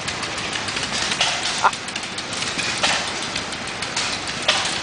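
Engines running at an outdoor engine show, a steady mechanical noise with a sharp pop every second or so.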